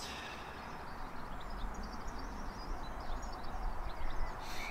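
Outdoor ambience: small birds chirping and singing in the background throughout, over a steady low rumble, with a brief hiss near the end.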